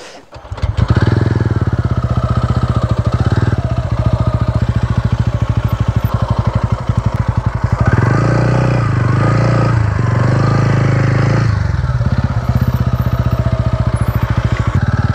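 TVS Ronin 225's single-cylinder engine comes in sharply about half a second in and runs as the motorcycle rides off along a rough dirt track. It pulls harder and louder from about 8 to 11 seconds in, then settles back.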